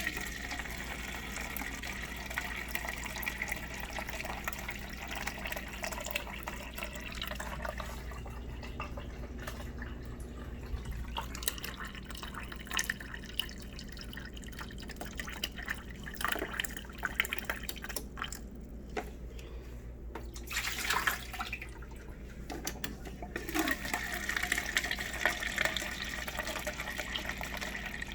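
Water running from a refrigerator's water dispenser into a plastic cup, spitting with air trapped in the line behind a newly fitted water filter. The flow stops for a couple of seconds about eighteen seconds in, then comes back.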